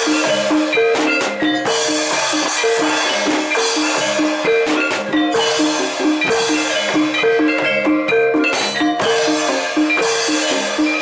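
Live Javanese gamelan accompaniment for barongan dance: keyed metal instruments repeat a short melody over steady drum strokes. A bright, shimmering wash comes and goes in stretches.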